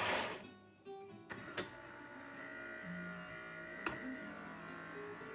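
A Philips 3200-series espresso machine's ceramic grinder stops right at the start. Then soft background guitar music plays, with two sharp clicks, about one and a half seconds and four seconds in.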